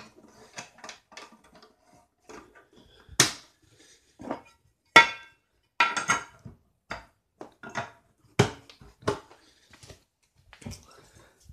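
Finned cast heat sinks of Kicker ZR series car amplifiers knocking and clanking on a wooden surface as the amps are handled and moved. It is a string of sharp knocks over several seconds, one of them ringing briefly like metal.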